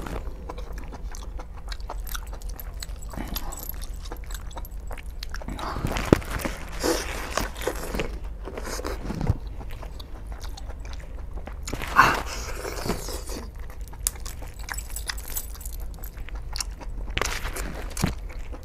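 Close-up chewing and biting of chicken leg meat, wet and irregular, with a couple of louder sharp clicks about six and twelve seconds in.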